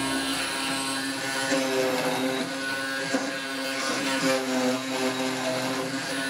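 Benchtop hollow-chisel mortising machine (MK361A) running, its motor humming steadily as the chisel is plunged into the wood, with a few louder bites as it cuts, about a second or so apart.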